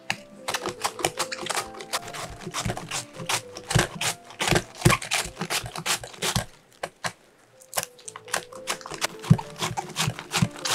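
White cabbage shredded on a handheld mandoline slicer: fast, crisp crunching strokes as the cabbage is pushed across the blade, with a pause of about a second just past the middle. Light background music plays underneath.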